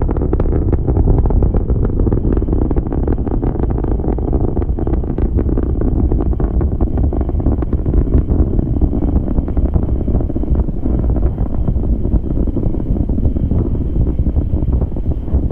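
Saturn V first stage's five F-1 rocket engines firing during launch: a loud, steady low rumble laced with dense crackling.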